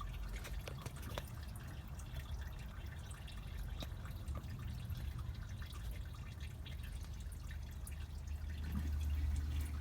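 Engine coolant dripping from the opened coolant system of a Toyota Tacoma's four-cylinder engine: irregular small drops over a steady low rumble.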